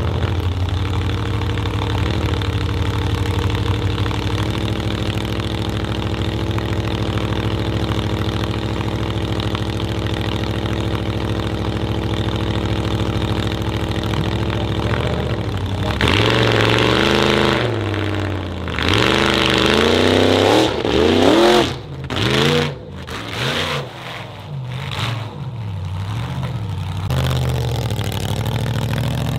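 Formula offroad car's engine idling steadily, then revved hard in a string of rising and falling blips, with sudden drops between them, for about ten seconds before settling back to idle.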